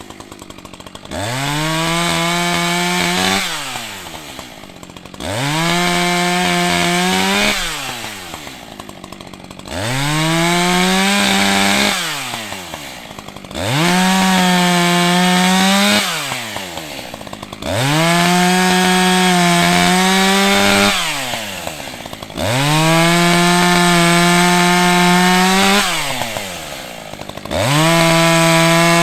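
ECHO CS-620P two-stroke chainsaw revving up to full throttle, holding a steady high pitch for two to three seconds, then dropping back toward idle. It does this about seven times in a row, at roughly four-second intervals, while bucking a fallen tree into rounds.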